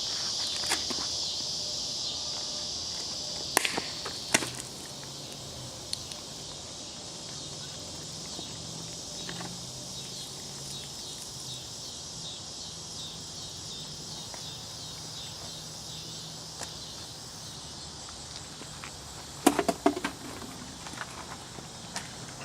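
Insects, crickets by the sound of it, chirping steadily in a high, even chorus. A couple of sharp clicks come about three and a half to four and a half seconds in, and a louder cluster of knocks comes near the end.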